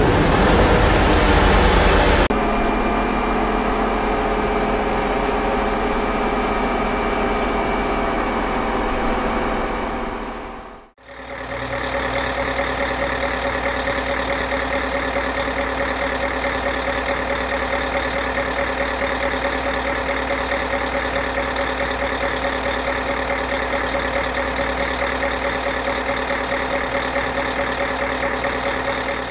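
Diesel engine of a construction machine idling steadily, in two stretches split by a short fade to nothing about eleven seconds in. In the first two seconds, the loud tail of a passing train.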